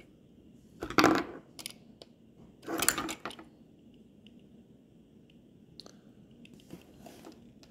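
Handling of a small plastic toy voice-recorder case: plastic clicks and rubbing, with two louder clattering knocks about one second and three seconds in and a few lighter ticks after.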